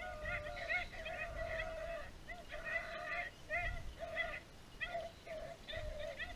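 A pack of beagles baying in repeated, overlapping calls as they run a rabbit's track.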